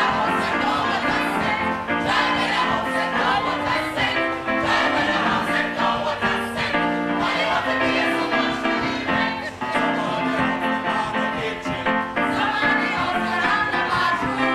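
Music with a choir singing, continuous throughout.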